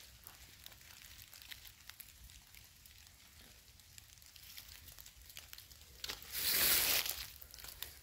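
Faint, scattered ticks of rain dripping onto wet forest-floor leaves. About six seconds in, a louder rustle lasts about a second.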